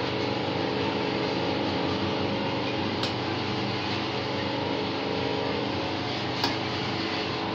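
Steady hum of a running fan, even and unchanging, with two light clicks about three and six and a half seconds in.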